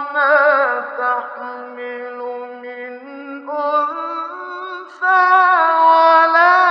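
A male Quran reciter's unaccompanied voice in the melodic mujawwad style, holding a long drawn-out vowel with wavering ornamental turns in maqam nahawand. The pitch steps upward twice and the voice swells louder about five seconds in.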